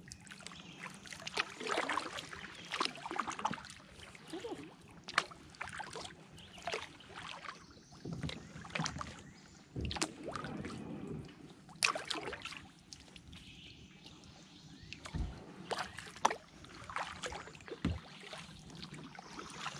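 Kayak paddling in calm swamp water: paddle blades dipping and pulling, with drips, small splashes and irregular sharp clicks and knocks.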